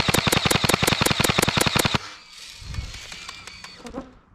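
Airsoft gun firing a full-auto burst of about eight shots a second, stopping abruptly about two seconds in, followed by a few fainter scattered shots.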